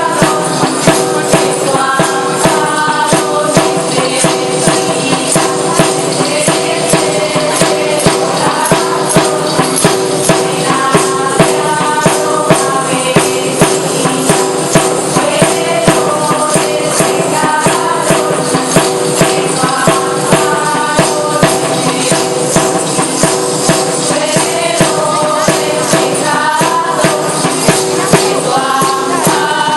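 Asturian folk music: tambourines beating a steady rhythm under a melody that moves over steady held tones.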